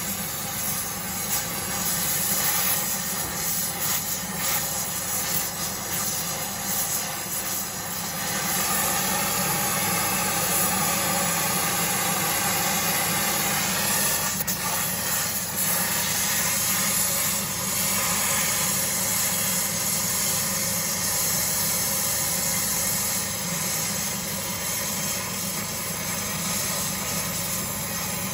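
Oxy-acetylene torch flame hissing steadily while a coarse Drill Tec traction rod is melted onto a steel horseshoe. It gets a little louder from about eight seconds in.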